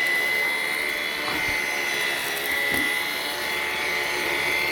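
Vax Pace Pet vacuum cleaner running steadily with a constant high-pitched whine, its brush bar working over carpet.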